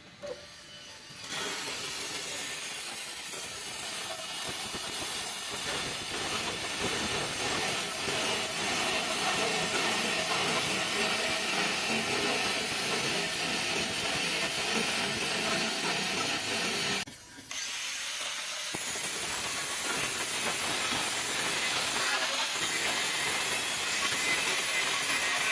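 Stick-welding (SMAW) arc burning with a steady crackling hiss. It breaks off about two-thirds of the way through and is struck again about a second and a half later.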